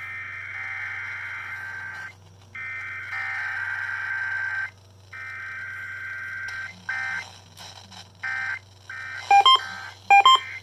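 Emergency Alert System SAME header data bursts: three long, raspy, screeching digital bursts with short gaps between them, then a few shorter bursts. Near the end come a run of short, loud beeps.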